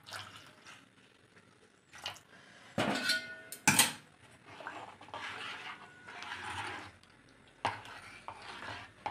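Metal ladle stirring thin lentil dal in a metal pot, scraping and clinking against the pot's sides, with a sharp clink a little under four seconds in.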